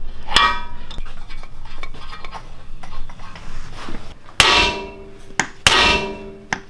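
Hammer striking the steel steering knuckle of a Ford F-150's front suspension, two hard ringing blows about a second apart in the second half, to knock the upper control arm's ball joint loose. Earlier there is a lighter single metal clank of tools.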